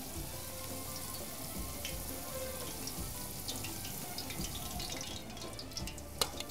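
Cooking oil poured from a bottle into a wide aluminium pan, a steady liquid pour, with a couple of sharp taps near the end.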